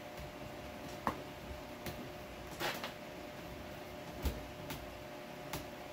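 Light clicks and knocks of a plastic power-drill housing being handled and pressed together, about six spread through a few seconds, with a brief scrape about two and a half seconds in.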